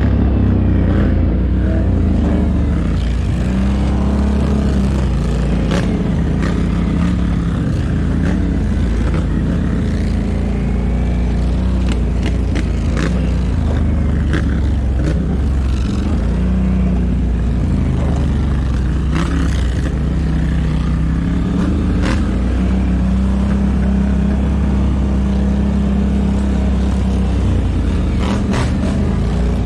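ATV engine running under load, its pitch rising and falling as the throttle is worked, with scattered sharp knocks and scrapes.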